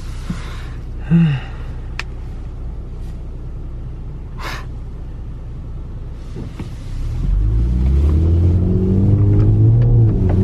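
Honda Accord engine, running a pops-and-burbles tune, heard from inside the cabin: a steady low rumble while cruising, then from about seven seconds in it gets louder and its note rises as the car accelerates.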